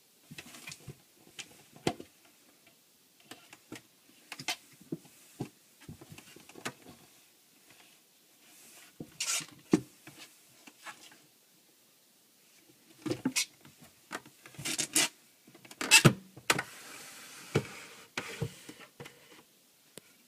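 A cat moving about inside a wooden chest drawer: irregular knocks, scrapes and rubbing against the wood. They get busier and louder in the second half, with a stretch of steady rustling.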